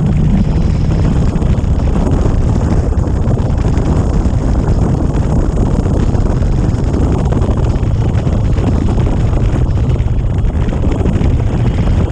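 Wind rushing over the microphone of a motorcycle-mounted camera at road speed, over the steady hum of the motorcycle's engine.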